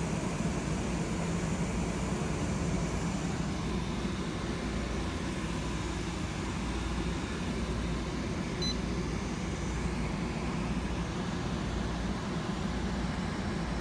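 Steady low machinery hum with a brief high beep about two-thirds of the way through.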